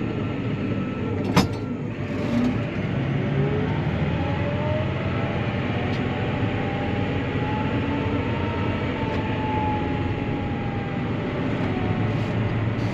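Claas Arion 650 tractor running, heard from inside the cab while driving, with a whine that rises slowly in pitch for several seconds and then falls again. A single sharp click comes about a second and a half in.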